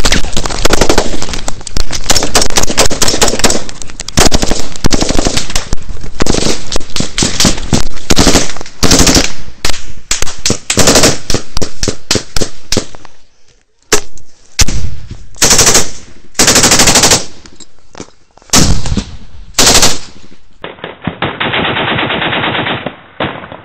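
Close, heavy automatic gunfire in a firefight: long strings of rapid machine-gun shots, so loud they overload the recording. It slackens to a brief lull a little past halfway, then comes back in short separate bursts.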